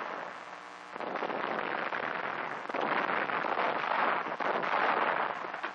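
A dense, crackling rattle of rapid gunfire and explosions from a wartime battle soundtrack, starting about a second in and getting louder about three seconds in. It has the narrow, hissy sound of an old film soundtrack.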